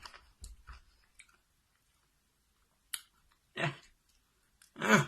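Soft mouth noises of someone chewing a Warheads extreme sour candy, with a sharp click about three seconds in. Then come two short strained groans, the second the louder, as a pained reaction to the candy's sourness.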